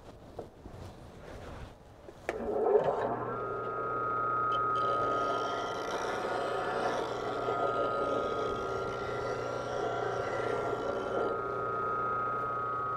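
Bench grinder switched on, its whine rising as the wheel spins up about two seconds in, then running steady. From about four seconds in, a rougher grinding noise rides over the whine as the half-inch bowl gouge is sharpened against the wheel, easing off near the end while the grinder keeps running.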